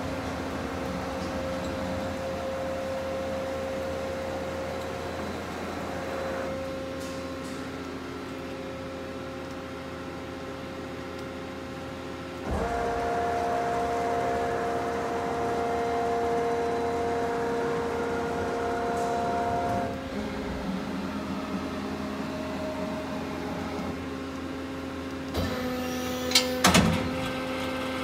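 Mori Seiki SL-65B CNC turning center running under power: a steady hum of several tones. It turns louder with a higher whine from about halfway in for some seven seconds, then drops back. Near the end come a few sharp mechanical clunks.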